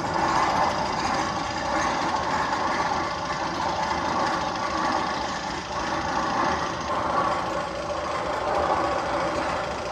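Rattling, engine-like mechanical sound effect from the Magnum XL 200 roller coaster's tunnel soundtrack: a fast, steady clatter.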